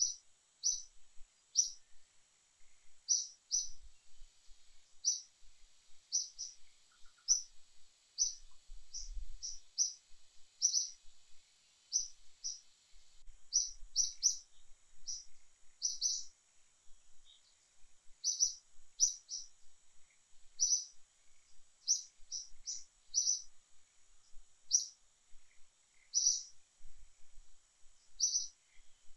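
A bird chirping over and over: short, high, sharp chirps, about one or two a second, in an irregular rhythm.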